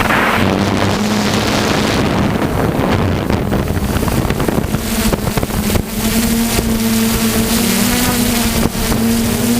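DJI F450 quadcopter's electric motors and propellers buzzing steadily, recorded by the onboard GoPro with heavy wind rush on the microphone. The propeller hum is partly buried by wind in the first half and stands out again from about six seconds in.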